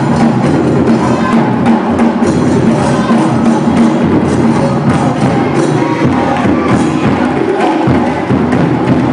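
Loud, busy percussion-driven music, a dense stream of sharp hits over a steady low body of sound.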